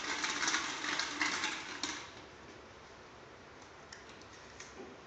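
Small plastic number balls clattering against each other and the glass of a fishbowl as a hand stirs them, for about two seconds, followed by a few light clicks as one ball is handled.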